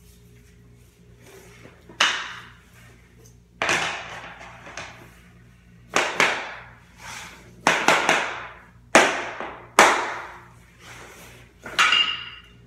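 Hammer tapping the edge of a LifeProof vinyl floor plank to seat it: about nine sharp knocks spaced a second or two apart, a few in quick pairs, each ringing briefly.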